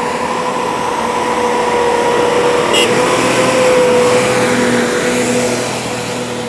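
Second-generation Mitsubishi Pajero V6 engine pulling hard at high revs up a snowy track with a steady whine. It grows louder as the vehicle passes close by about four seconds in, then fades as it pulls away. A short click just before three seconds.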